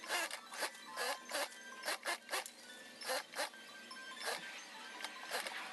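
Jacket fabric rustling in short, irregular strokes as the cloth pieces are shifted and smoothed by hand, over faint background music.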